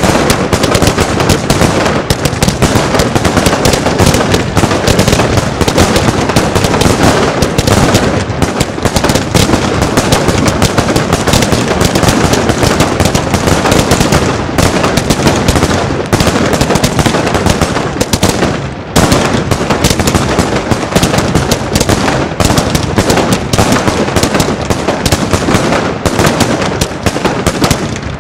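Pyroland Compazz Willows, a 125-shot 25 mm fireworks compound cake of five batteries, firing in a rapid, unbroken volley of launches and gold willow shell bursts, with two brief lulls partway through.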